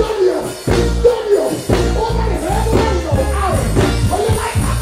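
Live reggae-dancehall music played loud through a stage sound system, with heavy bass and a singer's voice over it.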